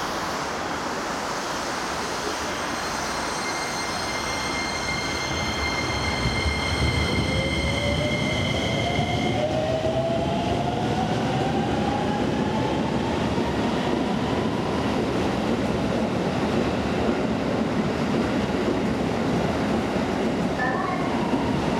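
Hokuso Railway 7500 series electric train pulling away from a standstill: a steady high whine of several tones, then a tone rising steadily in pitch as the train gathers speed, over a growing rumble of wheels on rail.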